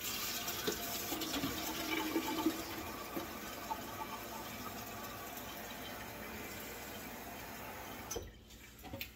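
Kitchen faucet running water into a small watering can being filled, a steady splashing fill that slowly grows quieter; the tap is shut off about eight seconds in.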